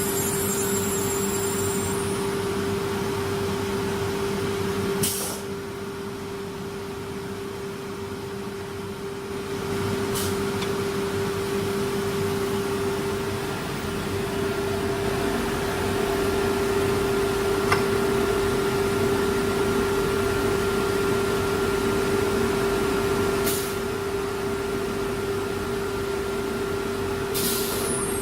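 CNC router spindle running with a steady whine over machine noise, with a few short sharp noises; it gets quieter for a few seconds about five seconds in.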